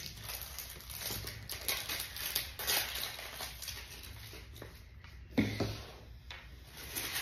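Light clicking and rustling of small plastic toy-dinosaur pieces being handled and fitted together, with one short squeak that falls in pitch about five and a half seconds in.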